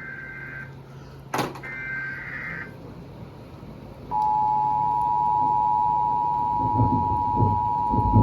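Emergency Alert System broadcast: the last two roughly one-second bursts of the SAME digital header's warbling data tones, then about four seconds in the steady two-tone EAS attention signal starts and holds, louder than the header.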